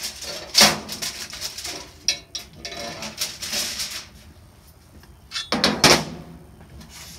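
Knocks and scrapes of a steel chainsaw bar being lifted off a gas grill's grate and set on its metal side shelf with gloved hands, with rustling in between; the sharpest knocks come about half a second in and near the end.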